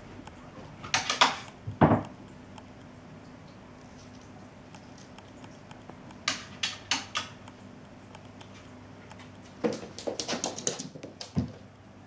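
Cats' paws and claws clattering on a wooden floor as they dash and pounce after a laser dot, in three quick flurries of taps and scrabbles, each lasting about a second, with a couple of heavier knocks from landings.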